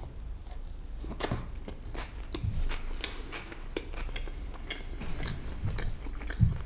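Close-miked chewing of a mouthful of lamb burger: wet mouth clicks and smacks scattered throughout, with a few soft low thumps, the strongest near the end.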